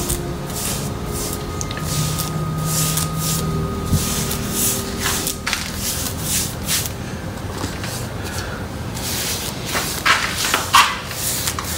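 Paintbrush bristles scrubbing paint onto a rough cement leaf casting: a run of short, scratchy swishes, one or two a second, irregular in spacing.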